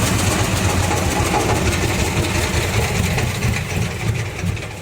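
16 HP diesel engine running steadily, driving a palm-frond chopping machine with a dense low throb and mechanical hiss; the sound dies away near the end.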